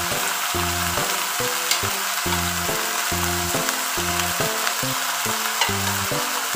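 Marinated beef slices sizzling in a hot wok of onions as more meat is added, a steady frying hiss with a few faint clicks of a slotted spoon. Background music with changing notes plays over it.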